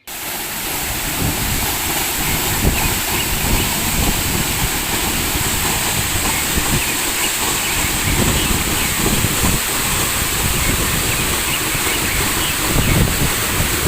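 Steady rushing noise with wind buffeting the microphone in irregular low gusts.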